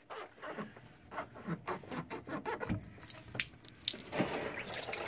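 Handling noises: irregular rubbing, scraping and small clicks as a hand works at a rubber coolant hose, turning into a steadier rustling from about three seconds in.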